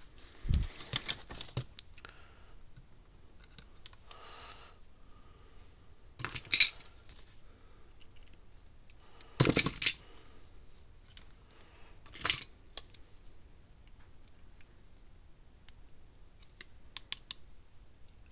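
Small clicks and rattles of wire, solder and hand tools being handled on a workbench, in about five short bursts a few seconds apart, with a dull bump on the bench at the start.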